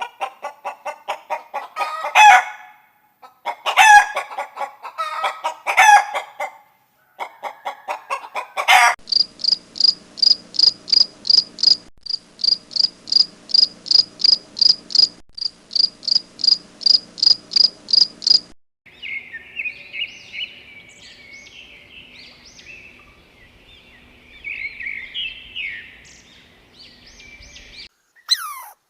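Chickens clucking, with several longer crowing calls in the first nine seconds. Then a steady run of short, high, sharp calls about two a second, and after that softer high chirping and twittering.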